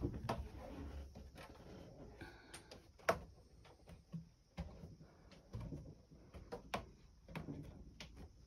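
Irregular light knocks and clicks on wood over low rustling handling noise, the sharpest click about three seconds in.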